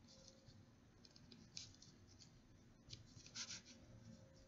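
Near silence with the faint scratch and tap of a stylus writing on a pen tablet, in a few short strokes, the clearest about one and a half seconds in and again around three and a half seconds.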